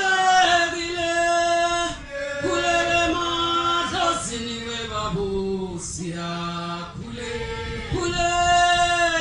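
A group of voices singing a slow chant together, holding long notes that change every second or two.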